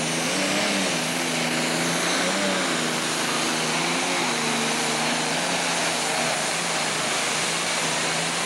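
Super stock pulling tractor's diesel engine running flat out under load as it drags the weight sled. The engine note wavers slightly, over a steady hiss.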